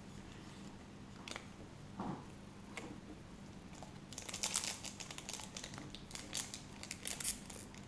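Foil wrapper of a trading card pack crinkling as it is picked up and opened, starting about halfway through, after a few light taps.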